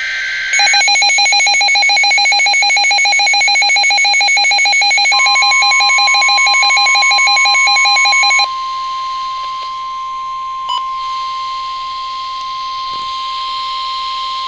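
Emergency Alert System tones for a severe thunderstorm warning. The end of the warbling digital data burst comes first. A loud, fast-pulsing attention signal follows for about eight seconds. From about five seconds in, a steady single-pitch warning tone overlaps it and carries on alone almost to the end, with one brief click about eleven seconds in.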